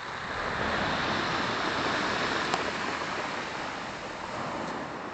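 Black Sea surf washing onto the shore, a steady rush of breaking waves that swells about a second in and slowly eases.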